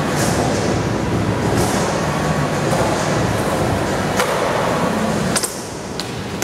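Skateboard wheels rolling with a steady rumble, with a sharp clack about four seconds in. A second clack of the tail popping comes about five and a half seconds in, and then the rumble stops while the board is in the air.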